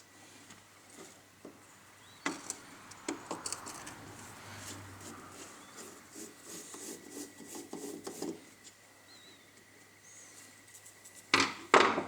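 Clicks, rattling and scraping of hand tools and small metal parts as an angle grinder's gearbox housing is unscrewed and taken apart, with two sharp knocks near the end.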